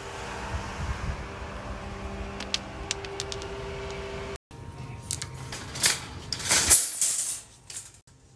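A steady hum with a held tone. After a sudden cut, a metal shopping cart rattles and clatters as it is pushed, then settles to a quieter background near the end.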